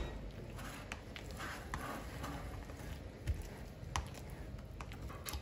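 A hand squeezing and stirring thick, wet batter full of black olives in a bowl: soft squelching with a few sharp light clicks scattered through it.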